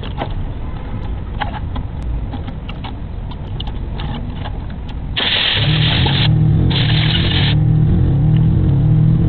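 Scattered light clicks and knocks of engine parts and fittings being handled. About five seconds in, a steady low machine hum starts, with two roughly one-second bursts of hissing.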